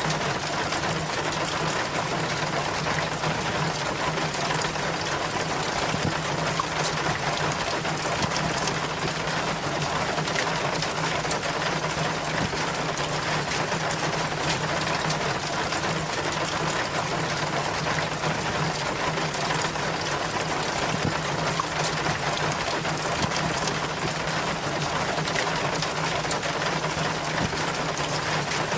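Rainwater running down a rain chain, splashing and trickling steadily through its links with a dense patter of small drips, over a steady low hum.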